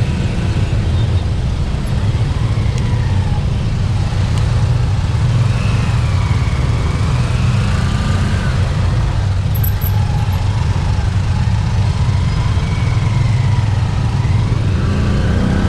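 Engines of slow, jammed traffic running steadily: motor scooters and a bajaj auto-rickshaw close by, heard from a scooter creeping along in the jam. A low, even rumble with no sharp events.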